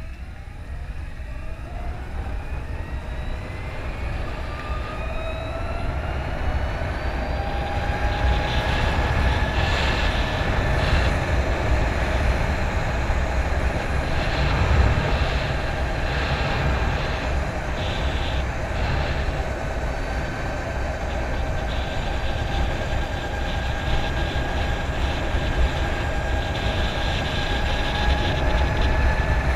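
Harley-Davidson LiveWire electric motorcycle accelerating: its motor and gear-drive whine rises in pitch over the first several seconds, then holds steady at speed. Heavy wind rush on the microphone underneath.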